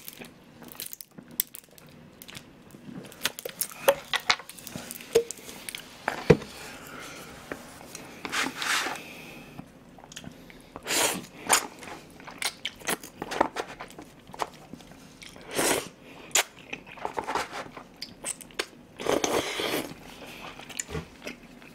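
Eating sounds picked up by a close microphone: Chinese-style jajangmyeon noodles slurped in several noisy pulls of about a second each and chewed, with wet mouth smacks and sharp clicks in between.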